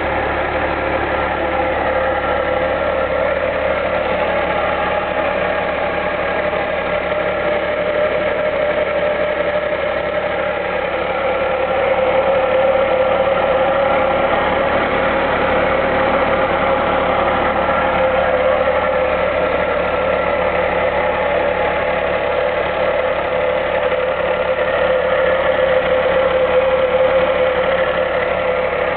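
Mitsubishi i's three-cylinder engine running with a steady whine on top of the engine note, an abnormal noise that follows the engine exactly. The owner suspects the accessory drive belt but is not sure.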